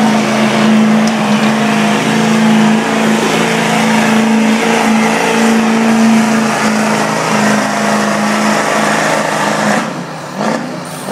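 Diesel 4x4 pickup truck's engine held at high revs under full load while pulling a weighted sled, a loud steady drone at one unchanging pitch. About ten seconds in the engine lets off and the sound drops away as the pull ends.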